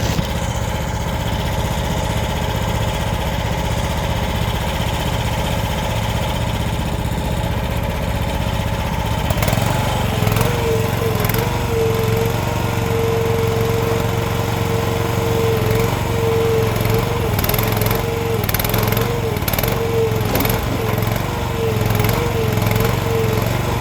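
AGT mini excavator's small engine running steadily. About ten seconds in, a steady, slightly wavering whine joins it as the hydraulics come under load, and toward the end there are scattered knocks and clatters.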